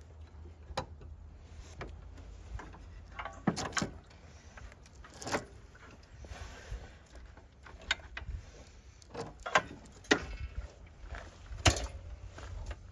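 Irregular clanks and knocks of tools and metal parts being handled, about a dozen sharp hits with a few ringing briefly, over a low steady hum.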